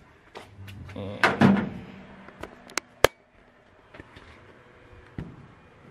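Scattered clicks and knocks of handling and moving about a pickup truck with the camera in hand, with one sharp click about three seconds in.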